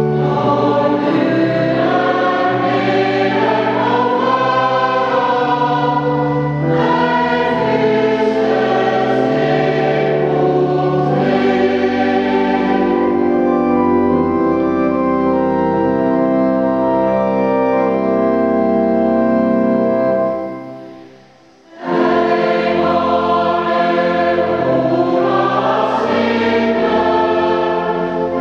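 Mixed choir singing a mass setting in sustained chords with organ accompaniment. About three quarters through, the music stops for a second or so and the choir comes in again.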